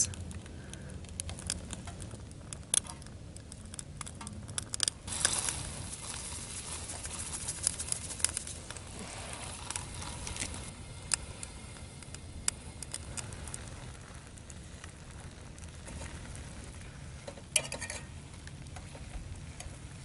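Beef chunks frying in a mess-kit frying pan over a Sterno canned-heat stove: a steady sizzle with scattered crackles and light clicks, getting stronger about five seconds in.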